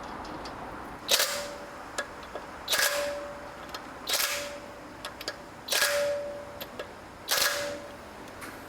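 Pneumatic impact wrench running the wheel nuts on in five short bursts about a second and a half apart. Each burst is followed by a brief steady whine.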